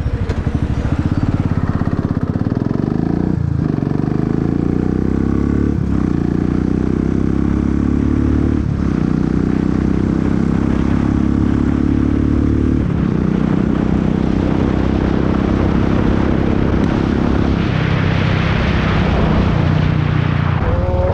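Royal Enfield single-cylinder engine, with a Red Rooster performance exhaust and BMC air filter, pulling hard at full throttle from a standstill. The pitch climbs in each gear and drops briefly at each upshift, about four shifts in all.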